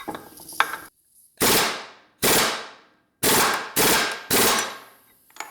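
Impact wrench hammering at a gearbox nut in five short bursts, each with a rattling start and a quick fade.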